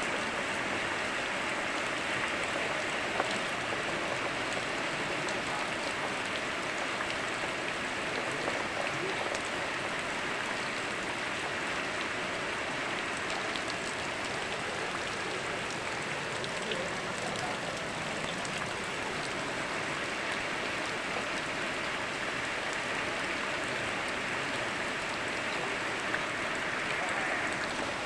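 Steady rain mixed with flowing river water: an even hiss with a few sharp drop ticks scattered through it.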